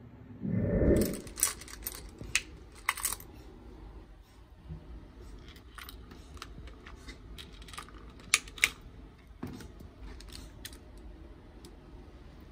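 Handling noise around a homemade metal ice-bucket lamp: a dull thump about half a second in, then scattered sharp clicks and taps as a hand works inside the bucket, with two quick clicks close together a little past eight seconds.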